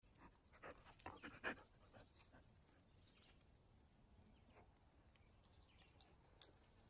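Near silence in still morning air, with a few faint soft sounds from a dog close to the microphone about a second in, and two sharp clicks near the end.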